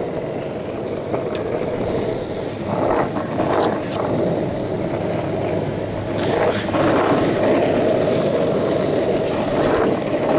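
Skateboard wheels rolling over asphalt: a steady, loud rumble, with a few sharp clicks a little before the middle.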